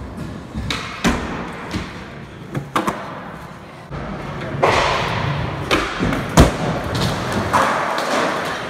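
Skateboard riding: hard wheels rolling with a steady rumble, broken by sharp knocks and smacks of the board popping and landing. The loudest smack comes about six and a half seconds in.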